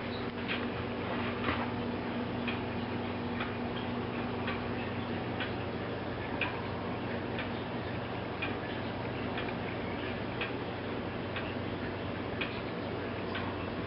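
Eight-day weight-driven movement of an 18th-century Philip Glasco, Dublin tall case (grandfather) clock ticking steadily, a louder tick about once a second with softer ones between, over a low steady hum.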